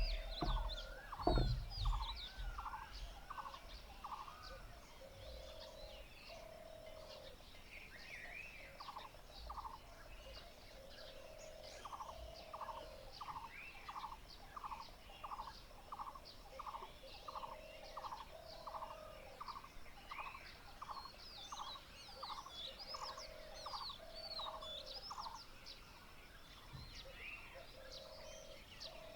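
Morning bird chorus: one bird repeats a short call about three times a second in long runs, another gives lower held notes about a second long, and small birds chirp high above. A few low thumps in the first two seconds.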